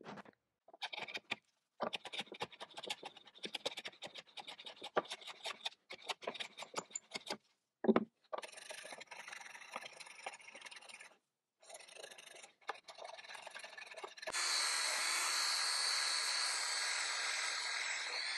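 Rapid short scraping strokes of a hand tool on pecan wood, with one dull knock near eight seconds. About fourteen seconds in, a power drill with a brush wheel starts running steadily against the slab's live edge; it is the loudest sound.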